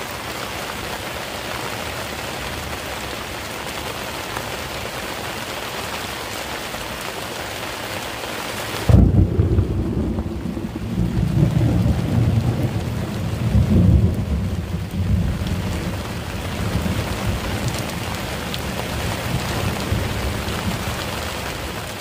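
Steady hiss of heavy rain, then about nine seconds in a sudden loud thunderclap, followed by rolling thunder that swells twice more before rumbling away.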